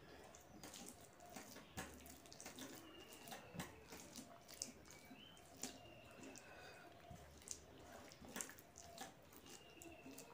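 Fingers mixing and mashing soft, starchy rice with mashed vegetables on a steel plate: faint wet squishing with irregular small clicks of fingertips against the metal.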